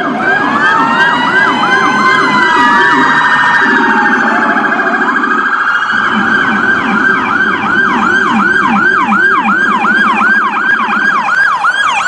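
Electronic emergency-vehicle sirens sounding together. Fast yelp sweeps repeat about three to four times a second, and a slower wail rises and falls over the first few seconds. A lower-pitched repeating siren tone runs beneath them.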